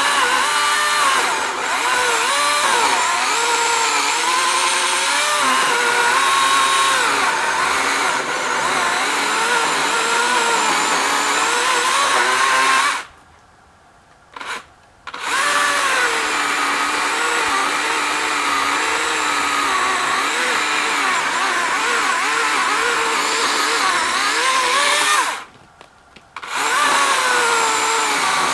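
Husqvarna 120i battery-powered chainsaw running and cutting wood, its motor pitch wavering up and down under load. The sound cuts off abruptly twice, each time for about a second.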